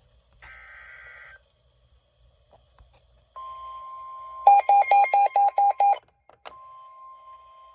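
NOAA Weather Radio alert sequence. A one-second burst of digital data warble comes first, then the steady 1050 Hz warning alarm tone starts about three seconds in. Partway through, a louder rapid beeping of about four beeps a second sounds for about a second and a half; after a brief break the steady tone continues, signalling the severe weather warning that follows.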